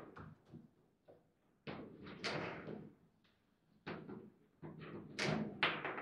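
Table football play: bursts of sharp knocks and clacks as the ball is struck by the plastic figures and the rods are worked, in three flurries with short pauses between.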